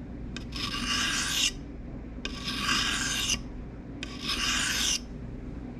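Pocket knife blade drawn across a fine sharpening stone: three separate scraping strokes of about a second each, with short pauses between.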